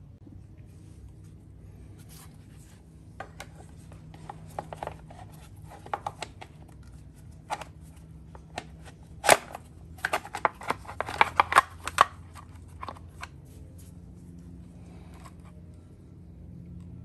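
Gloved hands handling parts while fitting an engine guard to a motorcycle: scattered sharp clicks and knocks, coming thickest and loudest in a quick run between about nine and twelve seconds in, over a steady low hum.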